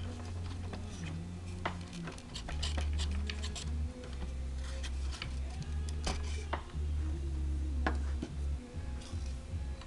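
Light plastic clicks and taps as the detachable gooseneck is handled and lifted off a scale-model heavy-haul truck tractor, over background music with a low bass line that moves in steps.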